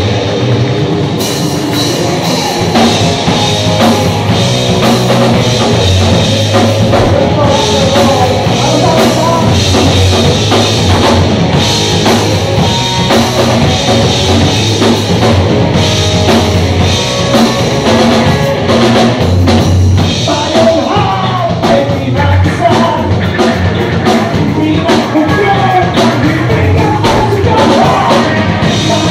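Live rock band playing loud: a drum kit with cymbals, electric bass and a singer's voice. The drums and cymbals come in fully about a second in.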